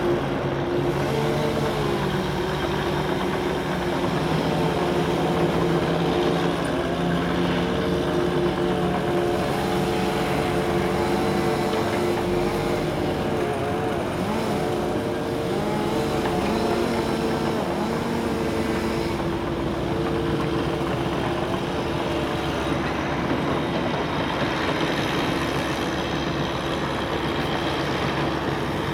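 Jet engines of an Airbus A330 airliner rolling along the runway after landing: a steady drone with several held whining tones, some wavering slightly in pitch partway through.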